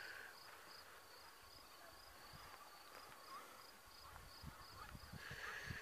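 Faint cricket chirping at an even pace, about two chirps a second, with a few low bumps toward the end.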